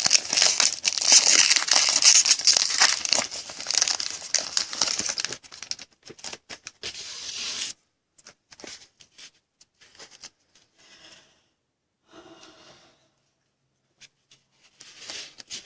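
Wrapper of a pack of football trading cards being torn open and crinkled: dense crackling for the first five seconds or so, another short burst around seven seconds, then only a few light clicks and faint rustles.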